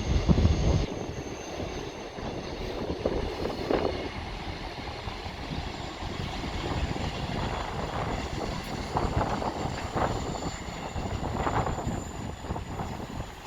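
Class 159 diesel multiple unit (two sets, 159 017 and 159 006) running through the station, a steady rumbling train noise. Wind buffets the microphone in the first second.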